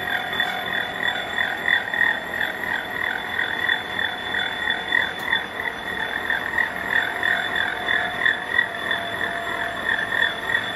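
Gear hob cutting a steel gear blank on a 1927 Oesterlein universal milling machine. The hob's teeth make a rhythmic chatter about three to four times a second over a steady high tone from the machine.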